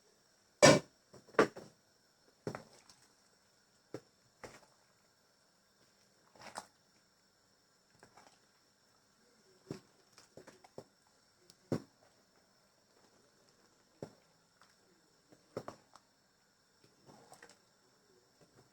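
Scattered short knocks and clicks of kitchen utensils against cookware, irregular and a few seconds apart, the loudest two about a second in, over a faint steady high-pitched whine.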